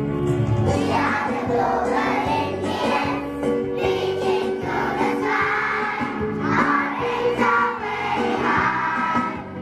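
A large group of schoolchildren singing together in chorus, many young voices in unison.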